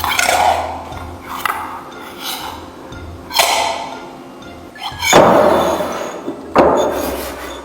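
Five sharp strikes, each ringing out and dying away before the next, spaced a second or two apart.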